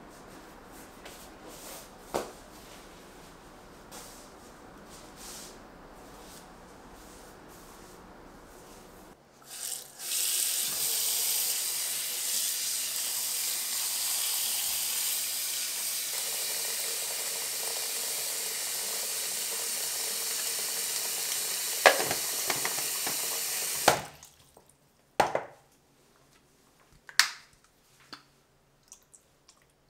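Tap water running into a bowl of used washable pet pee pads to fill the soak, a steady hiss that lasts about fourteen seconds and then stops suddenly. Afterwards the wet cloth pads are squished and splash in the water a few times.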